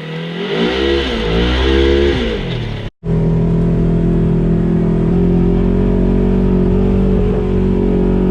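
Off-road vehicle engine revving up and down twice, then, after a brief break, running steadily under way.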